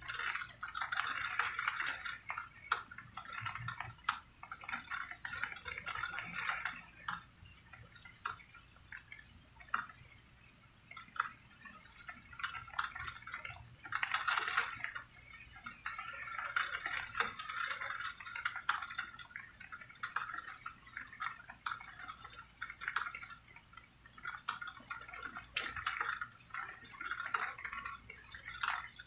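Rain dripping and splashing: many small drops ticking and pattering in irregular bursts that swell and fade every few seconds, with no thunder.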